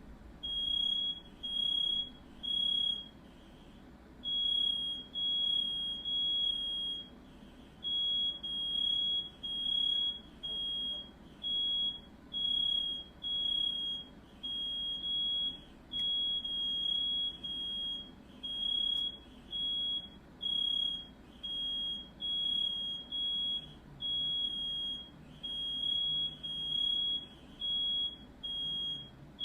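Smoke alarm sounding: a high, steady electronic beep repeated in sets of three with a short pause between sets, the standard fire-alarm evacuation pattern.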